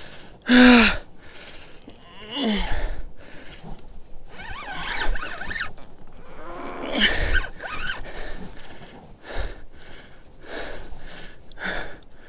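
A man grunting and groaning with strain as he holds a large fish on a hard-bent rod: a string of short wordless calls that drop in pitch, the loudest about half a second in.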